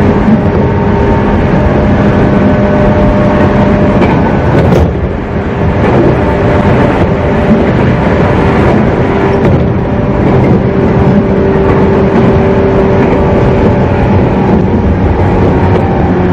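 JR 113 series electric multiple unit heard from inside the car while running at steady speed: a loud, steady rumble of wheels on rail with a constant drone from the traction motors and gears. About five seconds in there is a brief sharp sound and a short dip in the noise.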